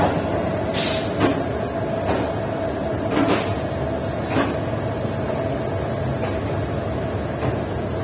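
A train of passenger coaches rolling slowly along the platform, its wheels knocking several times at uneven intervals over a steady rumble and a constant hum.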